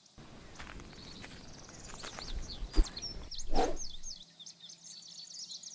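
Birds chirping repeatedly in a meadow-like nature ambience. Under it a low rumble stops suddenly about four seconds in, with a sharp click just before and a brief louder sound at about three and a half seconds.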